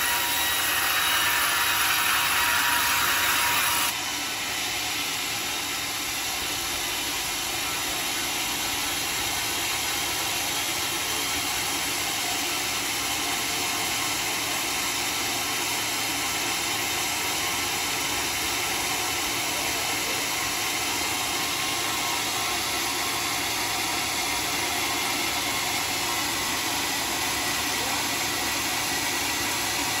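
A homemade sawmill blade sawing through a teak log, a dense hissing rasp that stops about four seconds in. After that the mill keeps running steadily with no cut underway.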